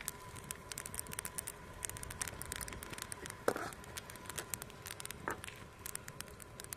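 Dried wild rue seeds (esfand) crackling and popping on hot embers: a dense run of quick sharp pops, with two louder ones about three and a half and five seconds in.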